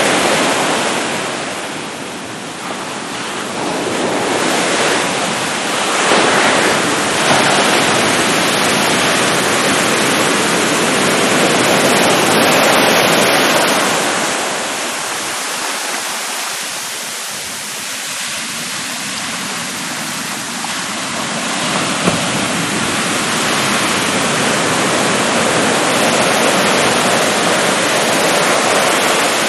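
Surf: waves breaking and washing up onto a sandy beach, a continuous rush of water that swells and ebbs as successive waves come in.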